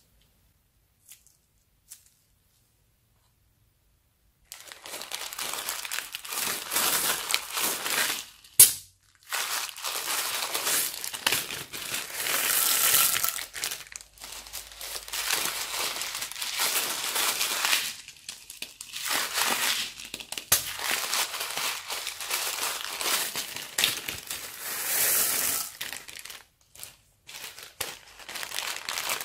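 Plastic zip bags crinkling and rustling as beads and cut straw pieces are shaken out of them onto slime, with a sharp click about eight and a half seconds in. The first few seconds are nearly silent.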